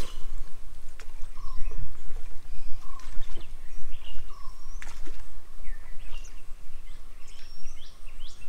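Several birds calling around a pond: short whistled chirps that rise and fall, with one lower note repeated about once a second, and a few sharp clicks. A steady low rumble underneath.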